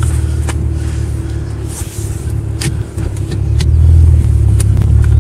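Infiniti G37S convertible's 3.7-litre V6 running with the car barely moving: a steady low rumble that grows louder about three and a half seconds in, with a few light clicks.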